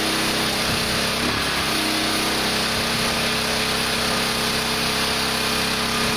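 A small gasoline engine running steadily at a constant speed, an even droning hum.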